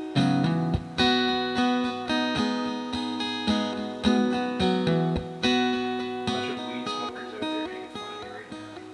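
Background music: a strummed guitar, chords struck about once a second and left to ring.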